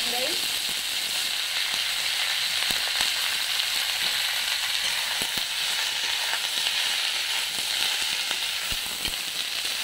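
Freshly added chopped radish, radish leaves and sponge gourd sizzling in hot mustard oil in a metal kadai, a steady frying hiss. A few sharp clicks sound through it, and a ladle stirs the vegetables near the end.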